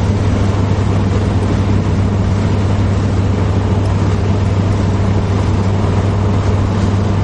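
Car driving at highway speed, heard from inside the cabin: a steady low drone of engine and tyres on the road.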